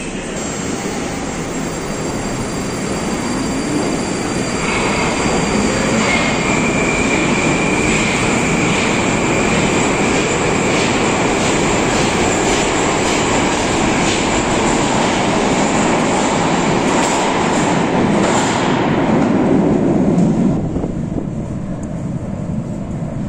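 Moskva 2020 metro train pulling out along the platform. Its electric traction motors give a rising whine and a steady high tone as it gathers speed, with wheels clicking over the rails. The sound falls away sharply about 20 seconds in as the train leaves the station.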